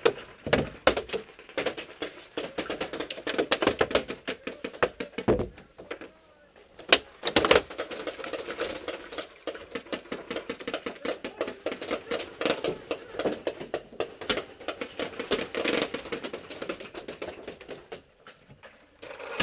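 Paintball fire at a wooden tower: a dense, irregular rattle of rapid clicks and taps of paintballs smacking the walls and markers firing, with a few louder pops about five and seven seconds in, easing off near the end.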